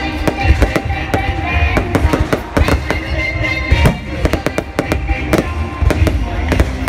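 Fireworks going off, many sharp bangs and crackles in quick irregular succession over loud music.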